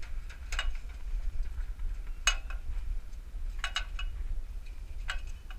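Four or five sharp, light clinks spread a second or so apart, like hard metal parts knocking together as they are handled, over a steady low rumble.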